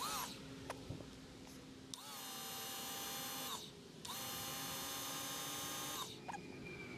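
A small motor whirring in two steady bursts of about two seconds each, the first about two seconds in and the second about four seconds in.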